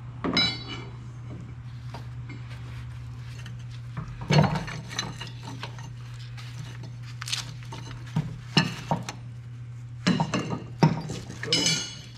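Metal clanking and rattling as a heavy-truck torque rod is wrenched and worked by hand on its mount. The clanks come one by one and a few ring, over a steady low hum. The rod will not come free because its bolt is seized in the bushing and worn into the mounting plate.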